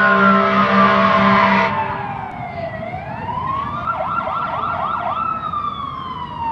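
Emergency vehicle sirens wailing: the pitch falls, rises, holds for about a second and falls again, and a second siren overlaps about four seconds in. For the first second and a half a loud steady roar with a low hum runs under the siren, then cuts off abruptly.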